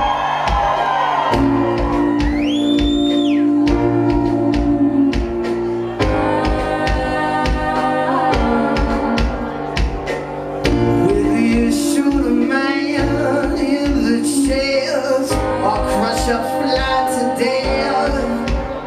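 Rock band playing live: a sung lead vocal over guitar and a steady drum beat.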